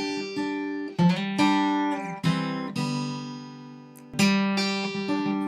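Background music: an acoustic guitar playing plucked and strummed chords, each chord ringing out and fading before the next is struck.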